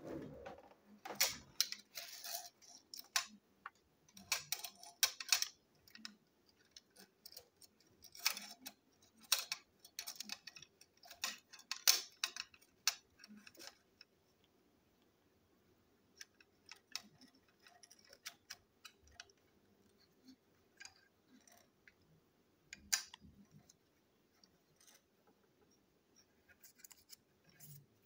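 Small plastic toy-engine parts clicking and clattering as the orange plastic chassis with its wheels and axles is handled and worked apart. Dense runs of sharp clicks in the first half, then only scattered faint clicks about halfway through.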